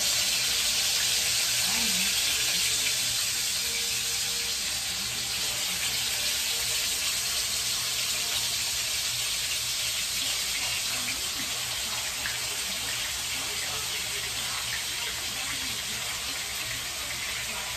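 Fish frying in hot oil in a frying pan: a steady sizzle, loudest at the start and slowly dying down.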